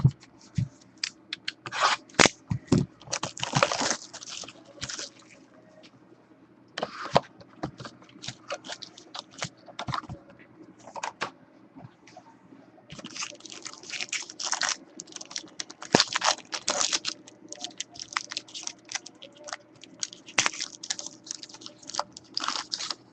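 Packaging of a sealed box of 2012 Prime Signatures football cards being opened: irregular crinkling, tearing and scraping of wrapper and cardboard in bursts with short pauses between.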